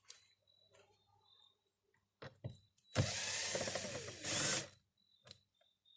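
Cordless power drill/driver spinning a door-panel bolt out for about a second and a half, with a louder spurt just before it stops. A few light clicks come just before it starts.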